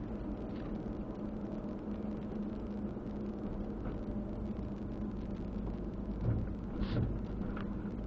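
Car being driven, heard from inside: a steady engine hum and road noise, with two soft thumps near the end.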